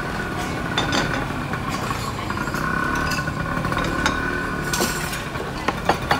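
Metal tongs and spoons clinking several times against steel pans and a small cup, over a steady low background rumble.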